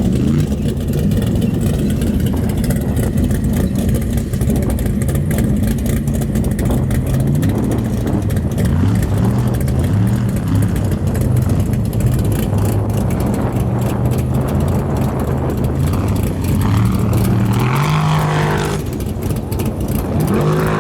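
Formula offroad hill-climb buggy's engine under hard throttle, its pitch repeatedly climbing and dropping as the revs rise and fall.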